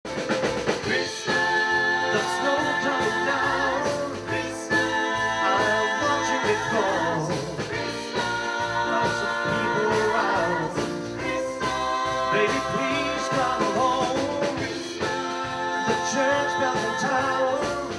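Music: a voice singing a song in the gospel style over instrumental backing with a steady beat, in phrases of a few seconds each.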